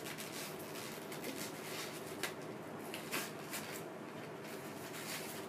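Faint scattered clicks and rustling as a plastic toy package is cut open.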